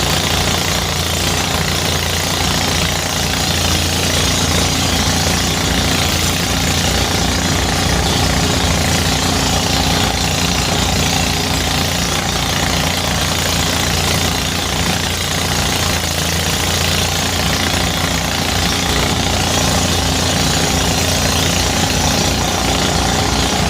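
Engine-driven rice threshing machine running steadily. A fast, even low engine pulse sits under a dense, constant noise.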